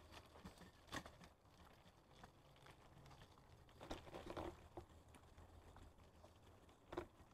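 Mostly near silence, broken by faint scattered clicks and rattles from a baby stroller rolling over a brick-paved path, with a small cluster of them about four seconds in.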